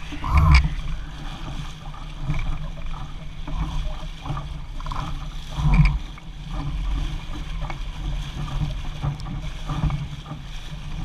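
Water rushing and splashing along the hull of a Laser sailing dinghy moving fast, over a steady low rumble. There are two louder splashes, just after the start and about six seconds in.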